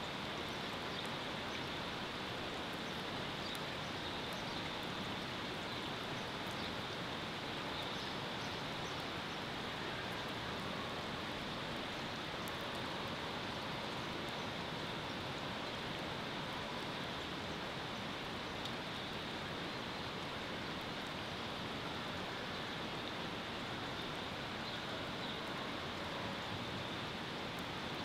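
Steady, even rush of water, unbroken and without any pitched tone.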